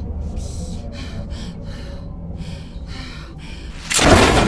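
A woman's quick, heavy breathing, about two or three breaths a second, then a sudden loud crash near the end.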